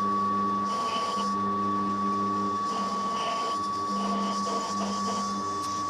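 Workshop machine tool running while stainless steel stock is machined, with a steady high whine and a lower hum that comes and goes every second or so.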